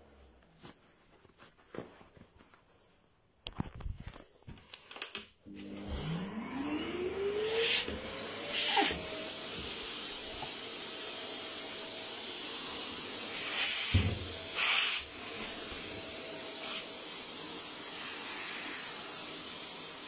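A vacuum cleaner is switched on about six seconds in, its motor whine rising in pitch as it spins up, then running steadily with a strong airflow hiss. A few louder rushes of air come partway through as a sock is worked at the nozzle. Before that there are only a few faint handling clicks.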